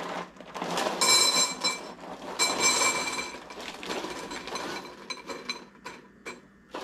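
Stuffed cereal squares (Cinnamon Toast Crunch Loaded) pouring out of the box into a ceramic bowl: a rattling, clinking stream that is heaviest a second in and again near three seconds in, then thins out to scattered clicks of single pieces.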